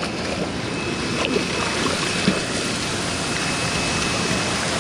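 Steady rush of fast creek water churning and splashing around wading legs.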